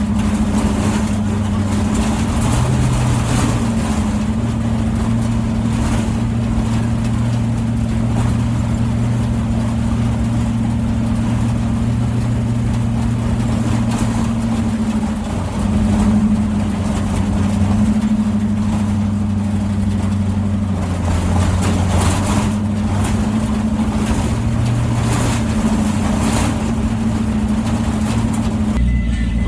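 A vehicle engine running steadily as the vehicle drives, its pitch shifting a little now and then, with frequent short knocks.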